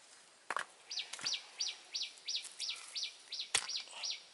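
A bird calling a fast series of about a dozen downslurred whistled notes, about three a second. Rough stones are handled over it, with three sharp knocks, the loudest about three and a half seconds in.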